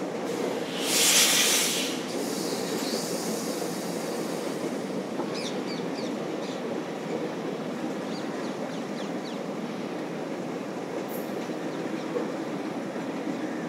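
Indian express train's coaches running at speed: a steady rumble of wheels on the track, with a brief loud rushing hiss about a second in. There are faint short wheel squeals around the middle.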